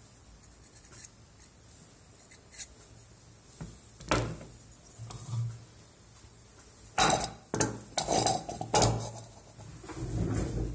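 Hard objects clattering on a lab bench as a plaster dental model and small metal tools are handled and set down. A few light clicks come first, then a run of louder knocks and scrapes in the second half.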